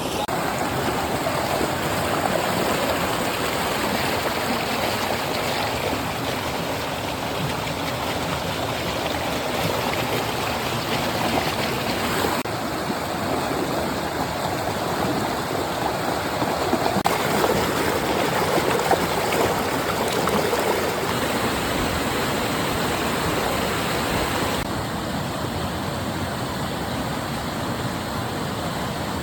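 Running stream water: a steady, even rush, whose character shifts slightly a few times.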